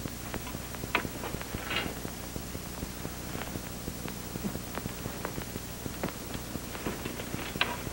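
Quiet old film soundtrack: a steady low hum with scattered faint clicks and a couple of soft rustles.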